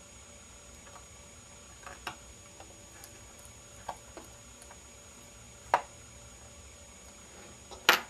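A handful of light, scattered metallic clicks and taps as a precision Phillips screwdriver tightens the small screws of a MacBook Pro's RAM cover; the sharpest click comes a little past the middle.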